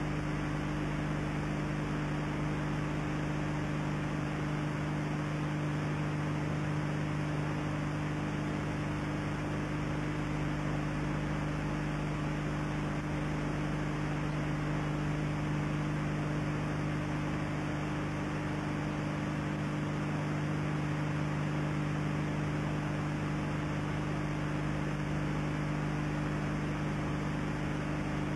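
Steady electrical mains hum over constant hiss, the background noise of an old videotape recording, unchanging throughout.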